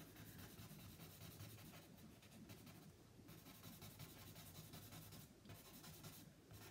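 Faint scratching of a willow charcoal stick on cartridge paper as a shadow is shaded in, breaking off briefly a few times.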